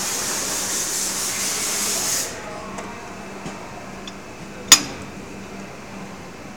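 Plastic injection molding machine: a loud steady hiss cuts off suddenly about two seconds in, leaving a low steady hum. A few faint ticks and then one sharp metallic click follow as metal parts are fitted into the open mold by hand.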